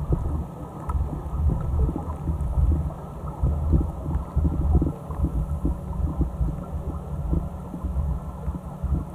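Muffled underwater rumble of water moving around a camera in a sealed housing. It swells and eases irregularly about once a second, with small clicks and ticks through it.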